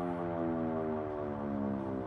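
Outdoor warning siren winding down, its tone falling slowly and steadily.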